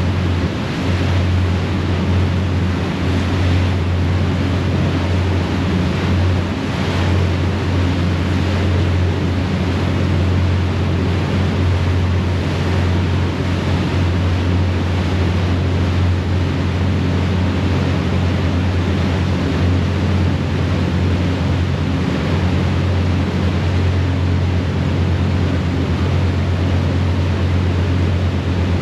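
Harbour ferry's engines running at cruising speed, a steady low drone, over the rushing wash of the churning wake behind the stern.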